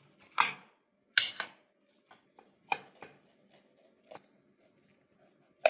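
Kitchen knife cutting the tough central ribs out of cabbage leaves: several short crisp cuts and leaf crackles, the loudest about a second in.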